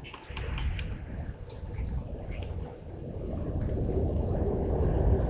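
Insects chirring in a steady, fast-pulsing high trill, with a few short bird chirps in the first two seconds. A low rumbling noise builds from about halfway and becomes the loudest sound.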